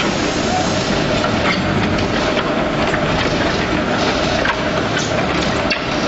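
Truck-mounted concrete mixer pump running: a steady mechanical din with a held hum, and scattered clicks and knocks as concrete works through the mixer and hopper.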